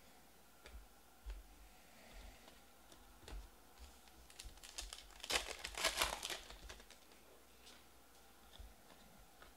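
A trading-card pack wrapper crinkling as it is torn open, with a dense crackle about five to six seconds in. Light ticks of cards being handled come before and after it.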